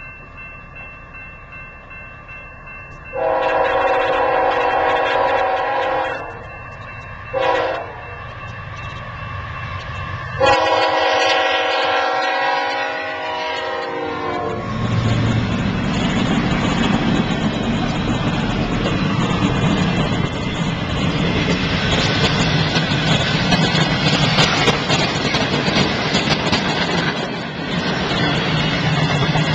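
Diesel freight locomotive's air horn sounding for a grade crossing: a long blast, a short blast, then another long blast. The locomotive then passes with its engine rumbling, followed by freight cars rolling by with steady wheel-on-rail noise and clickety-clack.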